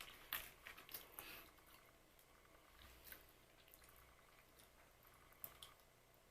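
Close-up chewing of crisp glazed puff-pastry biscuits. A run of crackly crunches comes in the first second or so, then quieter chewing with a few scattered crackles.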